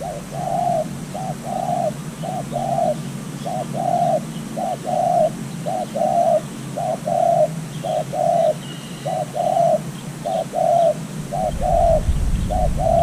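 Decoy dove cooing: a long, steady run of short coos in quick twos and threes, its call meant to lure wild doves in. A low rumble comes in near the end.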